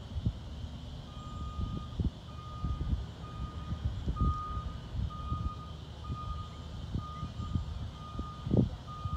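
A 2008 Ford F-450 utility truck's backup alarm beeps at one steady pitch, about one beep every 0.7 seconds, starting about a second in, as the truck reverses. Gusts of wind rumble and thump on the microphone throughout.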